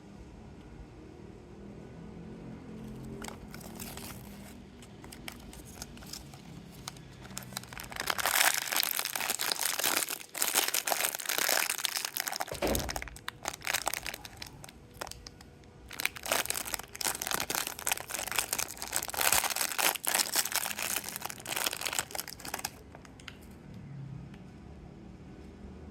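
Thin plastic wrapping crinkling and tearing in two long bouts, as a capsule toy is unwrapped by hand.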